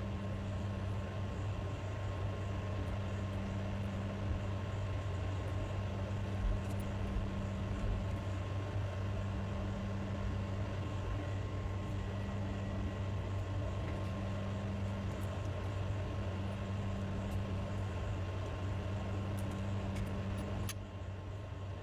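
Steady low hum over even background noise, with a thin constant tone above it and a few faint clicks near the end.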